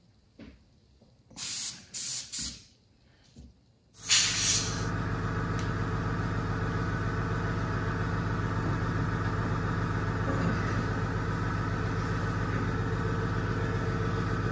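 A few short handling sounds, then about four seconds in an electric air blower starts with a rush of air and runs steadily. It is being used to blow loose material off a weathered model part.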